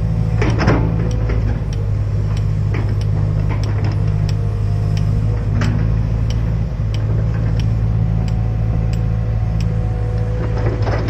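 Hydraulic excavator's diesel engine running steadily, with scattered sharp clicks and knocks from the machine working and a brief rattle about half a second in and again near the end.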